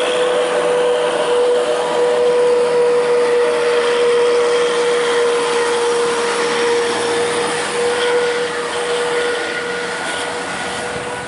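A tour bus's basuri horn sounding one long, steady note, over a haze of street noise, easing off slightly near the end.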